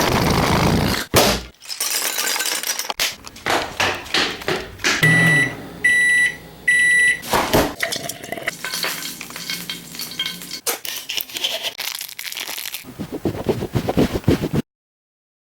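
A quick run of different short sound effects cut one after another, mostly clicks, knocks and noisy rustles, with three short high electronic beeps about five to seven seconds in. It cuts to silence near the end.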